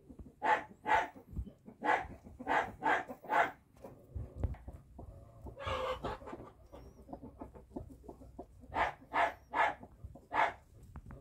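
Broody hen clucking in quick runs of short, sharp calls, about two to three a second, with one longer, harsher call about six seconds in.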